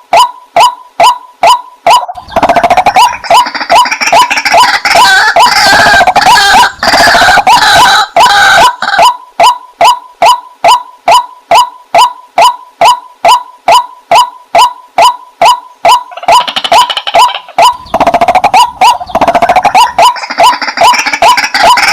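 White-breasted waterhen calling: a steady, even run of repeated 'wak' notes, about two to three a second, overlaid for long stretches by a louder, harsh chattering chorus.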